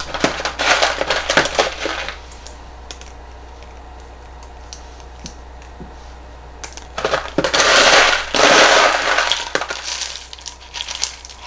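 LECA clay pebbles rattling as they are scooped and poured into a small plastic mesh pot: a dense clatter of many little pebbles, briefly at the start and then in a longer, louder pour about seven seconds in.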